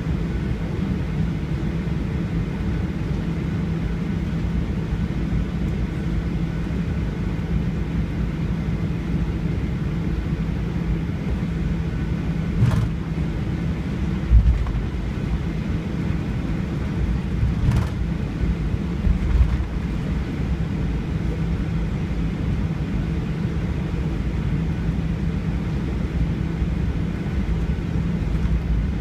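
Airliner cabin noise heard from a window seat: a steady low rumble of the jet engines with a faint hum, broken by a couple of brief clicks and two low thumps about halfway through.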